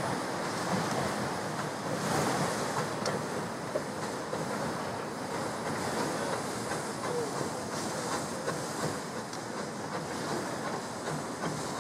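Small Peckett saddle-tank steam locomotive running light along the track: a steady hiss of steam and the noise of its wheels on the rails, with no clear exhaust beat.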